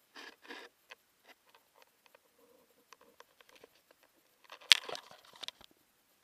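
Handling noise from a hand-held camera being moved: soft rustles and scattered small clicks, with one sharp, louder click a little under five seconds in followed by a brief cluster of rustling clicks.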